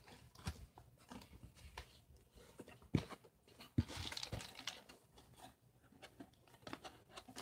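Quiet handling of a toy box and its packaging: scattered light knocks, taps and rustling as the box is moved and folded, with two sharper knocks about three and four seconds in.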